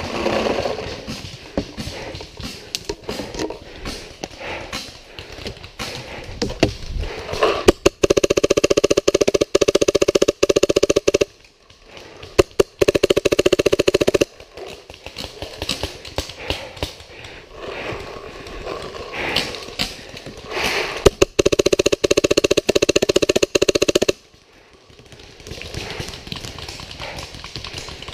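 Paintball guns firing: long rapid strings of shots lasting a few seconds each, three times, among scattered single pops and clicks.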